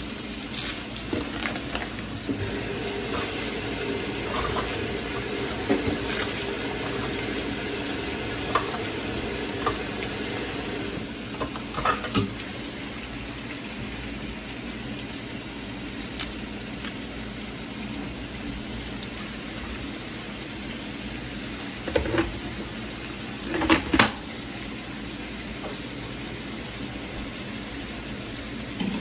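Chunks of beef brisket sizzling steadily in a frying skillet, with a few sharp clinks of utensils against dishes about 12 seconds in and again near 22 and 24 seconds.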